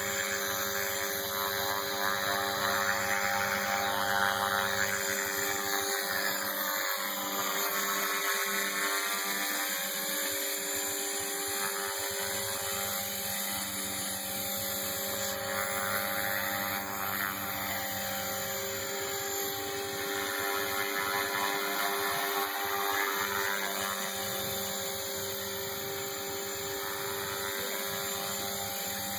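Align T-Rex 500 flybarless electric RC helicopter in flight: a steady whine from the electric motor and spinning rotors, with a sweeping, shifting swish as the helicopter moves and turns in the air.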